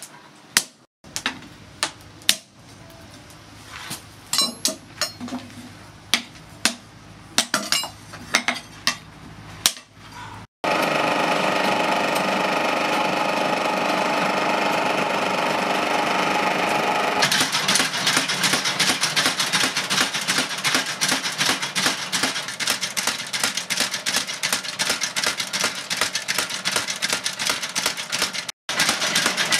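Scattered sharp hammer strikes on a red-hot steel knife blade held in tongs on an anvil. After an abrupt cut, a loud steady humming whir with several tones takes over, then a fast, dense run of repeated hammer strikes on the glowing blade on the anvil.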